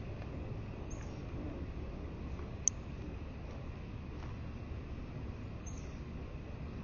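Three short, high chip notes from a bird, the loudest about two and a half seconds in, over a steady low background rumble.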